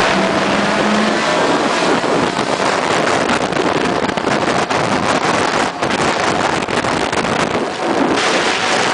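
Honda Civic engine and exhaust running under way, with heavy wind noise on the microphone.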